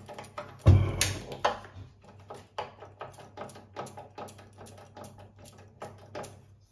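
Rapid, irregular clicking of a handheld spark gas lighter and the burner knob as a gas stove burner is lit and turned down to its lowest flame, with one louder thump under a second in.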